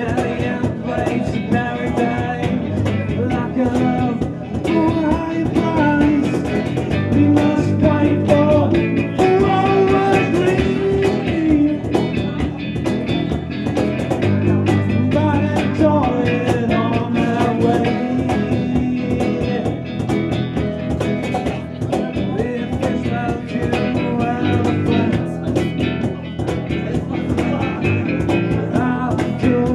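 A small rock band playing live: a male lead singer sings into a handheld microphone over electric bass and guitar.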